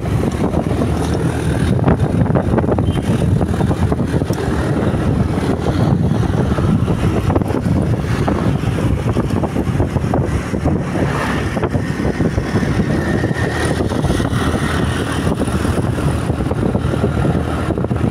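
Motorcycle on the move: steady wind rush over the microphone mixed with the bike's engine running.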